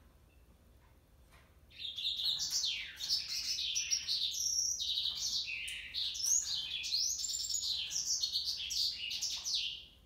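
Male yellow canary (Serinus flaviventris) singing one long, unbroken song of rapid, varied warbling phrases. It starts about two seconds in and stops just before the end.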